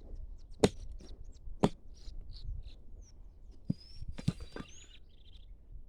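A hand tool digging in soil around a buried aluminium object: sharp knocks and scrapes, the two loudest about a second apart, with faint short bird chirps in the background.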